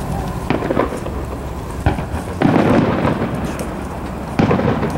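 Aerial fireworks shells bursting over open water in a series of booms, the loudest about two and a half seconds in and another near the end, each trailing off in a rumble.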